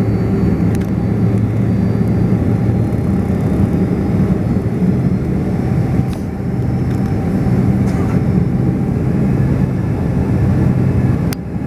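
Steady hum of an airliner's engines at idle, heard inside the cabin while the plane is on the ground.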